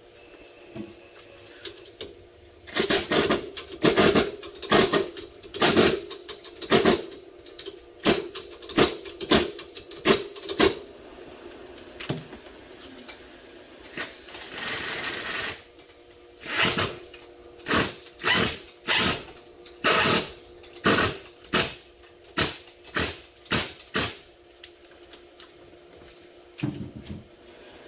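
Pneumatic impact wrench fired in dozens of short bursts, about one or two a second, with one longer run of about a second near the middle, driving nuts at a wheel hub.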